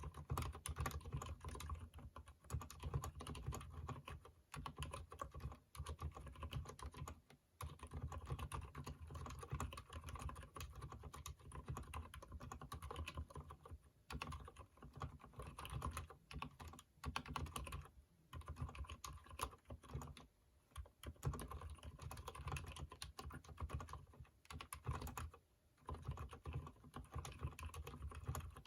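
Continuous typing on a Durgod keyboard with lubed Cherry MX Silent Red linear switches, a dense run of keystrokes broken by short pauses every few seconds.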